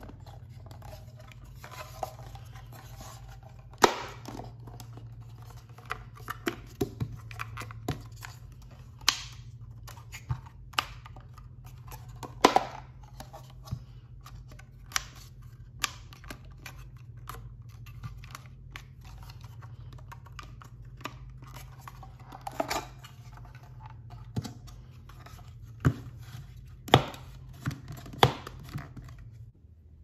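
Hands working a wooden Japanese puzzle box: its panels sliding and knocking, giving irregular sharp wooden clicks and taps with faint rubbing between them, over a steady low hum.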